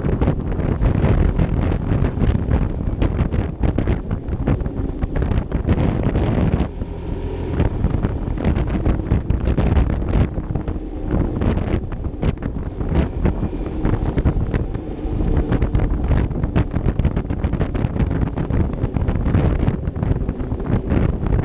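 Wind buffeting the action camera's microphone as a Vespa LXV 150 scooter is ridden along, rising and falling in gusts, with the scooter's single-cylinder engine running steadily underneath.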